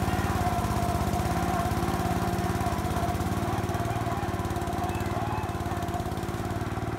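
Small petrol engine of an off-road lawn-tractor-type machine running steadily, with rapid, even firing pulses.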